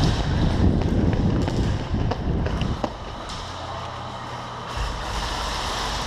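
Rushing handling and movement noise on a body-worn action camera, with scattered sharp pops and clicks of airsoft gunfire in the first half, then a steadier low hum.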